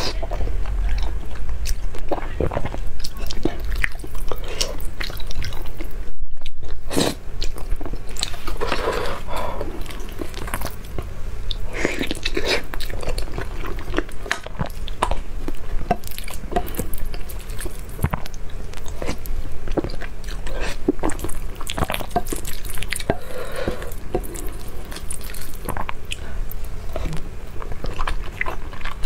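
Close-miked eating of saucy spicy instant fire noodles: wet slurps and chewing with many sharp mouth clicks and smacks, briefly cutting out about six seconds in.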